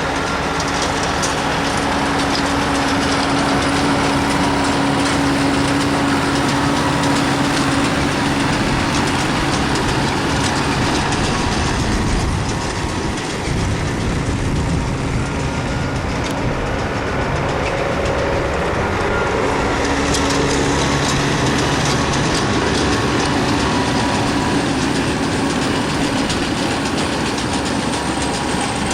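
Engine running steadily under a dense, noisy rumble. Its steady note fades for several seconds midway, then returns.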